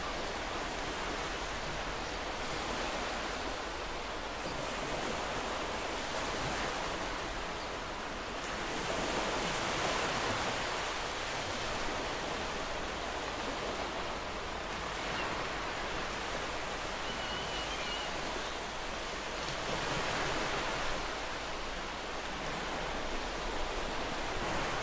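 Ocean waves washing on a shore: a steady surf hiss that swells and eases every few seconds.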